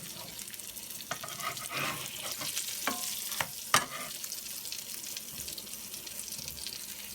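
Pancakes frying in a buttered pan: a steady sizzling hiss, with a few sharp clicks in the first four seconds, the loudest just under four seconds in.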